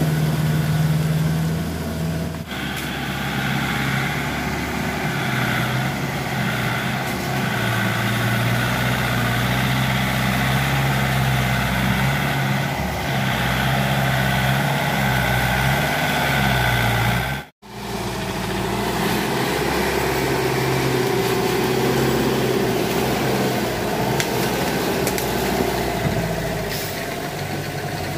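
Kubota L1-285 tractor's diesel engine running steadily while hauling a trailer load of timber. The engine note steps lower a couple of seconds in, and the sound breaks off sharply for a moment about two-thirds of the way through.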